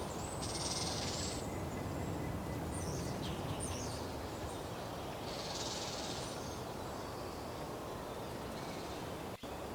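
Outdoor woodland ambience: a steady background noise bed, with two short high hissing sounds, one about half a second in and another around five and a half seconds in.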